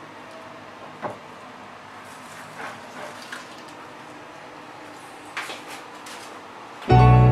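A few faint, scattered clicks and scrapes from live blue swimmer crabs shifting their legs and claws on a plastic cutting board, over steady low background noise. Background music comes in loudly near the end.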